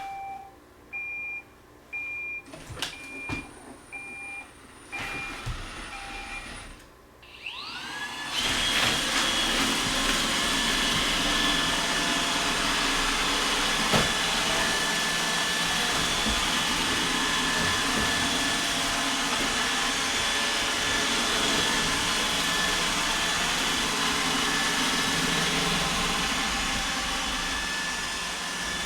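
iRobot Roomba 805 robot vacuum starting its scheduled cleaning. It gives a string of evenly spaced beeps, then about eight seconds in its motors spin up with a rising whine and it runs steadily, brushes and vacuum going.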